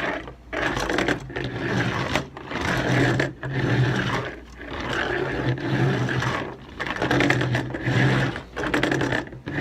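A child making a buzzing engine noise with his voice in bursts of a second or two, with short breaks between, while playing with a LEGO combine harvester model, with rapid clicking of plastic parts.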